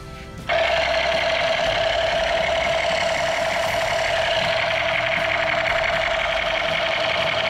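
Battery-operated toy machine gun firing its electronic machine-gun sound effect, a loud steady buzz with one held tone, starting about half a second in.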